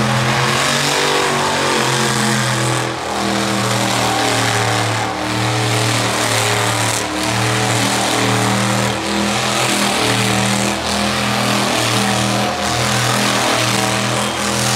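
Monster truck engine running at high revs, its note surging and easing back about every two seconds.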